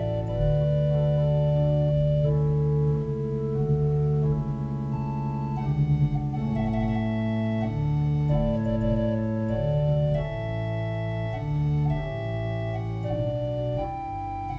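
Organ music: slow sustained chords held for a second or two each, moving steadily from one to the next.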